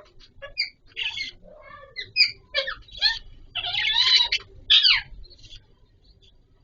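Budgies squawking and chirping in a quick string of short, harsh calls, with one longer scratchy call about four seconds in; the calling stops after about five seconds.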